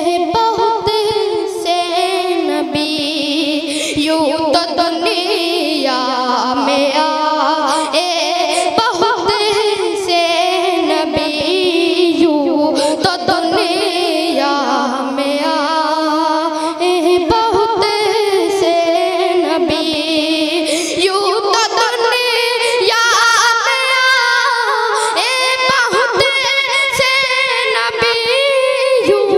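A boy singing a naat, unaccompanied, into a microphone: one high child's voice carrying long melodic lines that glide up and down without a break.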